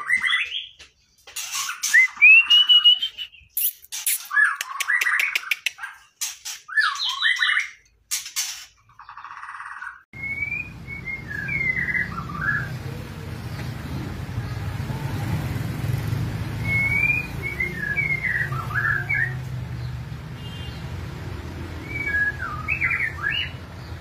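White-rumped shamas singing: a loud, dense run of gliding whistles mixed with sharp clicks for the first nine seconds. After a cut, short whistled phrases come every few seconds over a steady low background hum.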